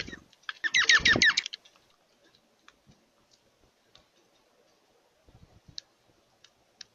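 A bird gives a quick burst of rapid chirps about a second in, over a brief low thump. After that come only a few faint scattered clicks and taps.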